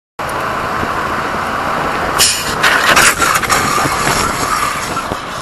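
Crash-test motorcycle going down and sliding on asphalt: a loud harsh scraping noise starts about two seconds in and lasts about a second and a half, over a steady rumble of vehicle and wind noise.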